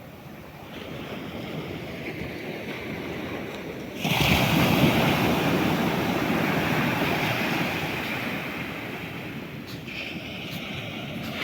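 Ocean surf: a steady wash of waves, with a wave breaking suddenly and loudly about four seconds in and then slowly washing out.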